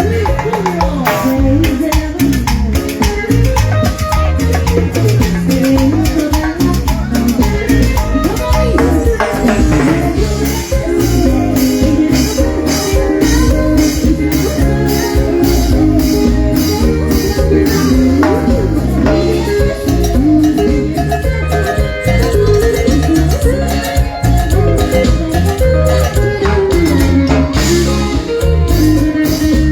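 A band plays upbeat Latin dance music in rehearsal, with drum kit and rattle-type percussion driving a fast steady beat under melodic instruments.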